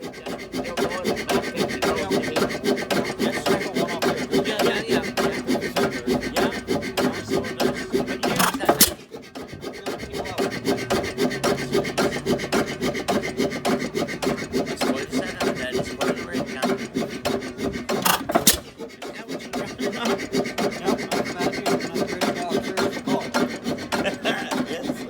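A 1911 Woodpecker stationary engine running, its works making a fast, steady mechanical clatter. A sharp loud crack stands out about nine seconds in and again about eighteen seconds in, each followed by a brief drop in level.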